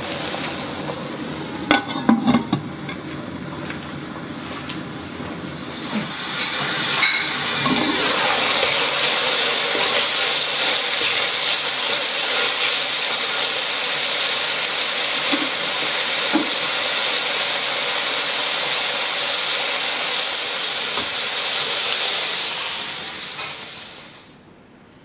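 Beef slices and sauce sizzling steadily in a nonstick wok. A spatula knocks and scrapes against the pan a few times in the first seconds. The sizzling grows louder about six seconds in and fades away shortly before the end.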